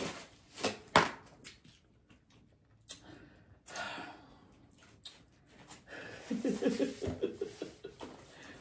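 A few sharp clicks and knocks of food and takeout containers being handled while eating, then a short, indistinct voice about six seconds in.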